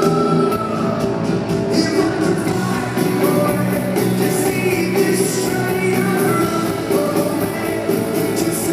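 Rock band playing live in a theatre, a sung vocal line over full band accompaniment with a cymbal hiss.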